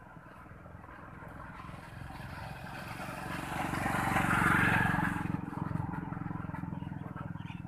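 A motor vehicle driving past: its engine noise grows louder, is loudest about four and a half seconds in, then fades away.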